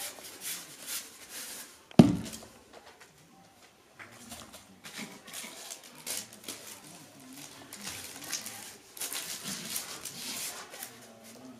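Paper rustling and crinkling as hands press and fold paper over the end of a wooden former, with one sharp knock about two seconds in, the loudest sound.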